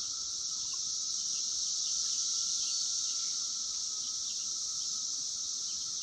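Chorus of 17-year periodical cicadas, a steady unbroken drone.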